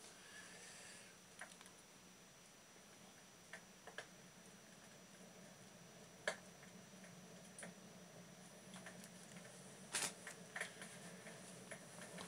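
Faint, sparse crackles and pops of a recorded log fire playing through a TV's speakers, single pops every second or few seconds over a low steady hum.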